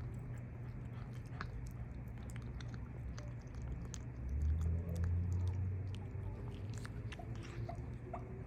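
A cat chewing and crunching its food, with many small, sharp clicks throughout. Under it runs a steady low rumble that grows louder about four seconds in.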